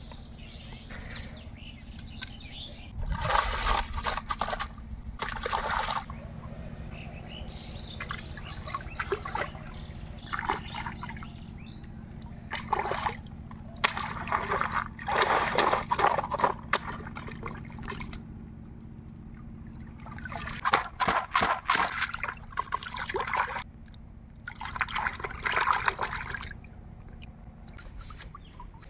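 Pond water sloshing and splashing in about five bouts of a few seconds each as a plastic colander holding cut fish pieces is dipped and swirled in it, water pouring and trickling back out through its holes.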